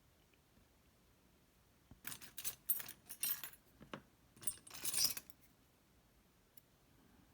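Small metal lock parts clinking and rattling in two short flurries, the first about two seconds in and the second a little after four seconds: the pins and springs of a disassembled Lockman Megacross SP lock being handled and shaken out.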